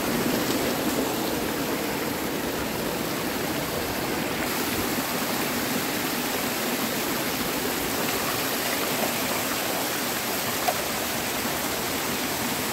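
Hot spring stream rushing steadily over rocks. The rush gets brighter and hissier about four seconds in.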